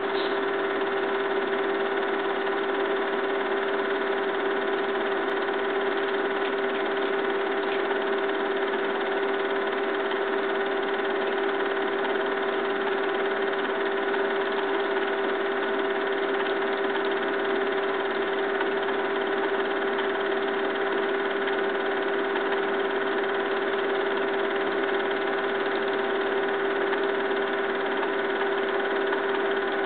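Film projector running: a steady mechanical whir and hum with one constant mid-pitched tone, unchanging throughout.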